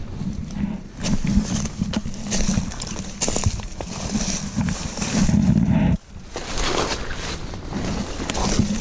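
Saw palmetto fronds and brush rustling and scraping against a hiker pushing through dense undergrowth, over a low rumble of the handheld camera rubbing and jostling. The sound breaks off sharply about six seconds in and then picks up again.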